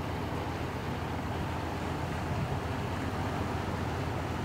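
Inland cargo barge's diesel engine running with a steady low drone as the vessel passes.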